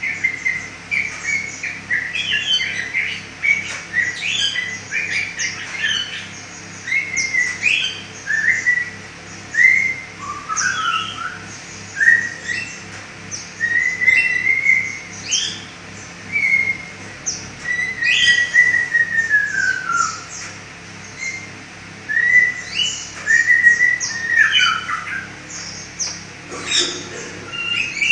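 A pet songbird singing without pause: a varied string of short whistled notes, many sliding up or down in pitch, mixed with quick chattering notes and one rougher, lower call near the end.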